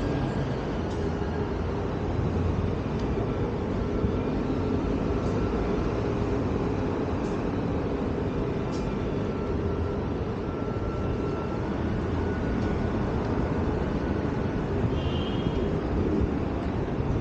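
Steady city street noise: the low rumble of traffic, with a few faint clicks and a brief high chirp near the end.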